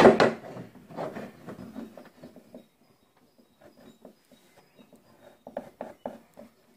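A sharp knock, then light scattered taps and rubbing of a homemade paintless-dent-repair smoothing tool working a dented steel car body panel. A short pause comes about three seconds in, then fainter taps.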